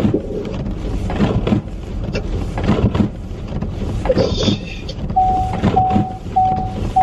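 Steady low rumble of a car's cabin while driving. About five seconds in, a steady-pitched electronic beep starts repeating a little under twice a second.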